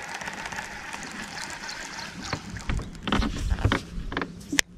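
Knocks and bumps of a fishing rod and tackle being handled in a small boat, over a light steady hiss, with one sharp click near the end.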